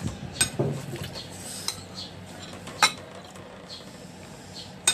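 Metal cutlery clinking against a dinner plate: three sharp clinks spread over a few seconds, with softer ticks and scrapes between.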